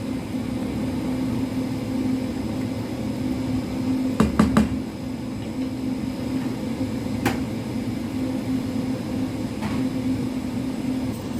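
Steady low electric hum of a running kitchen appliance, with a few sharp knocks of a utensil against the cooking pot, the loudest a quick pair about four seconds in.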